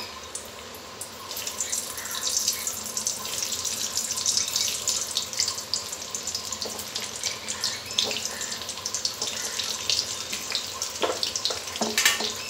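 Hot oil sizzling and crackling in a steel kadai as boiled potatoes are tipped in and begin to fry. The sizzle swells about a second and a half in and then runs on steadily, with a sharp knock near the end.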